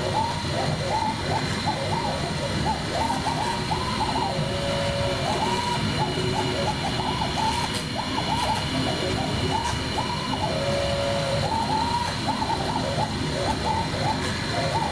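CNC router table cutting high-density tooling foam: the axis motors whine in tones that glide up and down constantly as the head traces the carving's contours, now and then holding one note for about half a second, over a steady machine noise.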